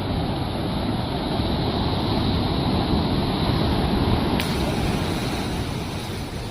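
Sea waves washing in, a continuous rushing that swells to a peak about two-thirds of the way through and then eases off.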